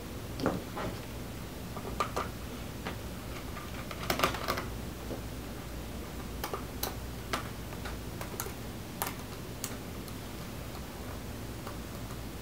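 Scattered small clicks and taps of a small Phillips screwdriver working screws out of a laptop's bottom case, with a denser clatter about four seconds in.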